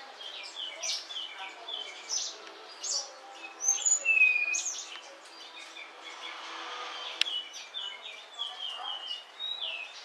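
Munias chirping: many short high chirps and runs of quick repeated notes, with one clear downward-sliding whistle about four seconds in.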